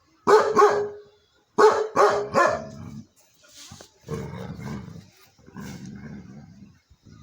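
Dog barking: two sharp barks, then three more a second later. They are followed by two longer, lower drawn-out animal calls of about a second each.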